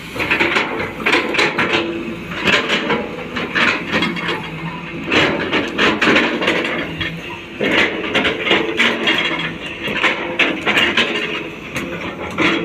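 Hyundai long-boom excavator working: its diesel engine and hydraulics run steadily under load while the bucket scrapes and clatters again and again against rocky soil and stones.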